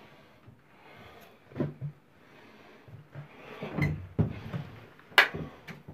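Scattered knocks and clicks with cloth rustling as a towel is pulled off a towel bar, the sharpest click a little after five seconds in. Among them is a faint sound the man in the room says he did not hear while he was there and cannot account for.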